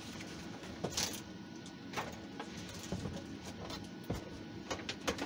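Scattered small clicks and knocks, with a brief rustle about a second in, over a steady faint background hiss: small objects being handled on a workbench.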